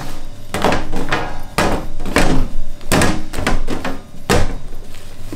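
Bread dough being worked after kneading, giving a run of dull thuds about every half second to a second.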